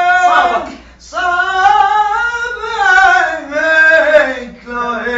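A man's voice singing an Iraqi Shia elegy (latmiya) unaccompanied, with no instruments or effects. He draws out long wavering notes that glide up and down, with a short breath about a second in.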